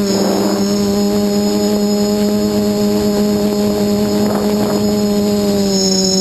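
Quadcopter's four brushless motors (SunnySky 2216 800KV) and 8x4.5 carbon propellers running in flight: a loud, steady buzzing hum with a high whine over it, its pitch holding nearly level. Two brief rushes of noise, just after the start and about two-thirds through.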